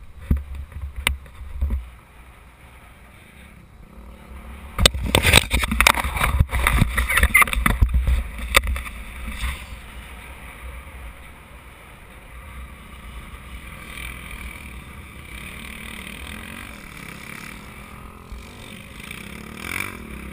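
Wind buffeting the microphone of a helmet-mounted camera, in loud gusts for a few seconds about a quarter of the way in, over a low steady rumble from the dirt bike and quads standing nearby.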